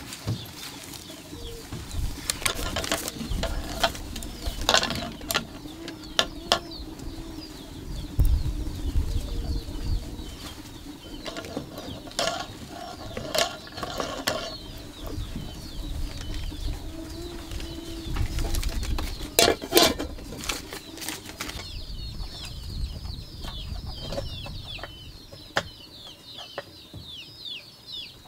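Scattered clicks and knocks throughout, with birds chirping in quick falling notes that grow dense over the last six seconds.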